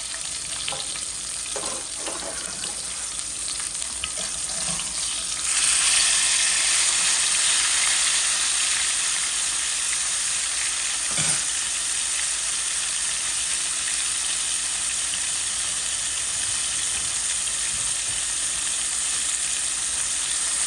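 Flour-dusted fish frying in hot oil: a steady sizzle that gets louder about five seconds in. There is a single knock near the middle.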